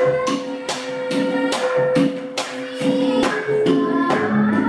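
Javanese gamelan ensemble playing, bronze pot gongs and metallophones ringing in sustained tones under a steady beat of sharp strikes about two to three a second.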